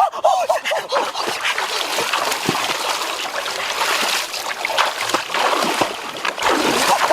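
Water splashing and trickling, an irregular run of small splashes.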